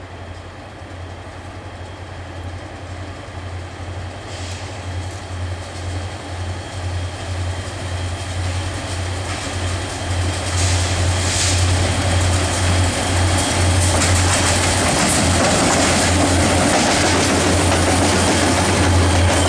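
Three EMD SD40-2 diesel-electric locomotives, each with a turbocharged two-stroke V16, approaching with a freight train. Their deep, steady engine drone grows steadily louder, and the lead units go past close by near the end.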